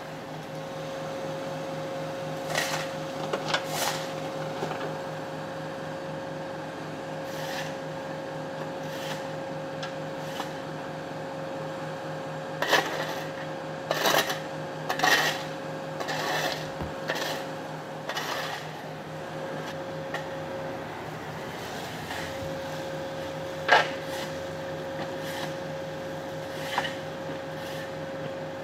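A steady mechanical hum with two unchanging pitches, broken by scattered short clicks and knocks, a few of them sharp and loud.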